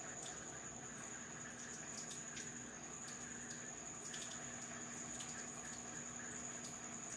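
GE King Capacity 15.1 kg top-load washing machine with water running and dripping in its drum during the rinse, a steady trickle with scattered small drips over a faint high whine.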